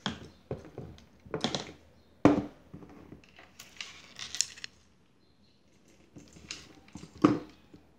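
Handling knocks and clicks as a metal helping-hands soldering stand is put in place and one of its alligator clips is opened and clamped onto a small circuit board. There are several separate knocks; the sharpest come about two seconds in and near the end.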